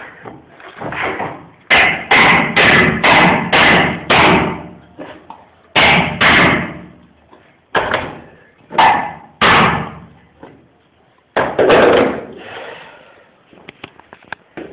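Hammer blows on a metal pull bar, knocking laminate floorboards tight against each other at the wall. A quick run of about seven strikes in the first few seconds, then strikes in twos and threes with pauses between.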